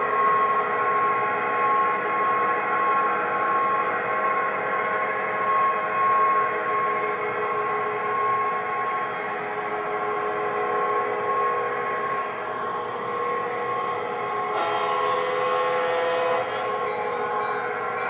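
Lionel O-gauge F3 diesel model locomotive set running on the layout, a steady whine over a rumble with a constant high tone. A brighter hiss joins about three-quarters of the way through for about two seconds.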